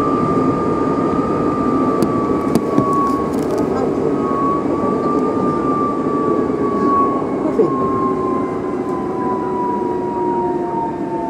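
Electric train heard from the driver's cab while braking on snowy, low-grip rails: a steady whine from the motors and gears sinks slowly in pitch as the train slows, over rumbling wheel and track noise. A few sharp clicks come about two to three seconds in.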